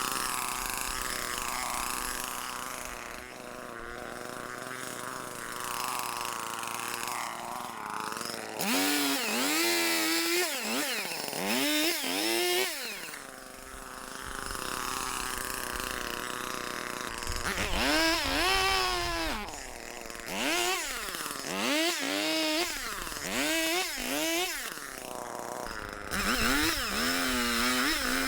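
Two-stroke Echo chainsaw running, then from about a third of the way in revved again and again, its pitch swinging up and down about once a second as it cuts through a downed tree limb.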